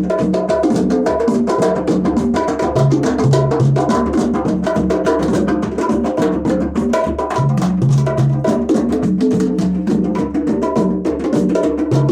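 Percussion-led music with a fast, steady beat: dense drum and wood-block-like strikes over a repeating deep bass figure, with a short high beep-like tone recurring throughout.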